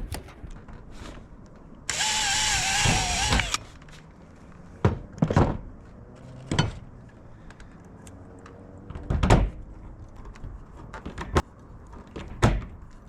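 A cordless drill runs for about a second and a half, its pitch wavering under load as it bores a rivet hole through the metal flashing. Several sharp clicks and knocks on metal follow.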